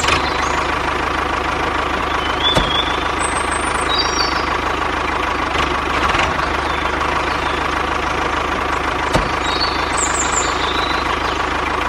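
Small electric gear motor of a homemade toy tractor running steadily as it drives, with a faint hum and a couple of light clicks. Birds chirp faintly now and then.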